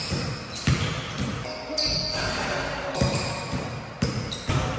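Basketball dribbled on a hardwood gym floor, a handful of bounces at an uneven pace.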